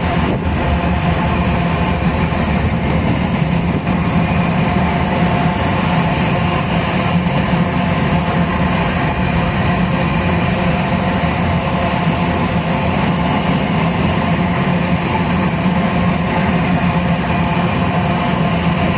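Steady, continuous vehicle running noise with a constant low engine hum, unchanging throughout.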